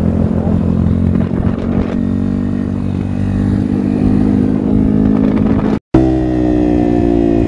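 Honda CRF230F's single-cylinder four-stroke engine running steadily under way on the road, with a brief dropout near the end after which it carries on at a slightly different pitch.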